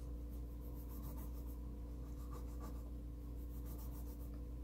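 Pencil sketching on paper: a run of short, faint scratchy strokes as lines are drawn, over a steady low hum.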